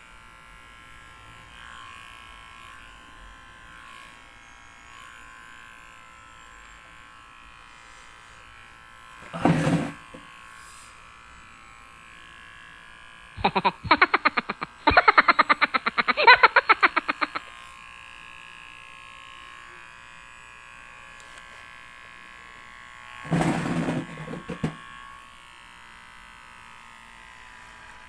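Electric hair clipper buzzing steadily as it shaves a head down to the scalp. Three louder short sounds break in: one about a third of the way through, a fast rattle of clicks lasting about four seconds near the middle, which is the loudest, and another near the end.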